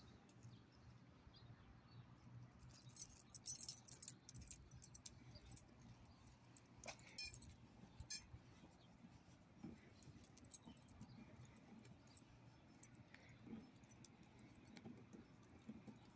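Near silence on a quiet walk, broken by light metallic jingling in a short cluster about three seconds in and twice more around seven and eight seconds, with soft low taps later on.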